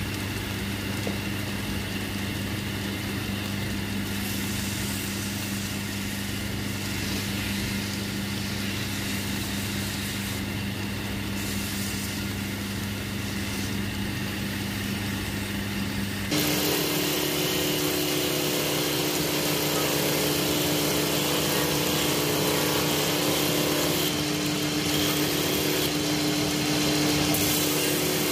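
Wood lathe's electric motor running steadily with a wooden pestle spinning on it. About two-thirds of the way through, the sound switches abruptly to a different, higher-pitched steady machine hum.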